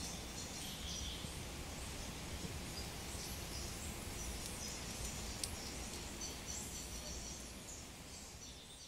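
Steady rain falling on woodland and water, with birds chirping, fading out near the end.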